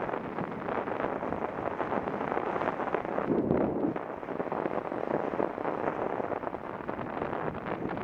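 Wind buffeting the microphone of a bike-mounted camera as the bicycle rides along the road, a steady rushing rumble that swells and eases.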